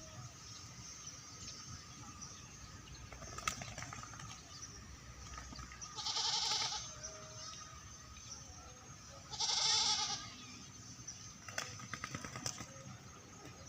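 A goat bleats twice, each call under a second long, about three seconds apart. A few short sharp clicks and rattling bursts come in between and near the end.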